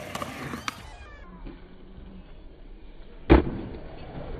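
Skateboard on a concrete mini ramp, with one sharp, loud clack of the board hitting the concrete a little over three seconds in. Faint, short high chirps sound near the start.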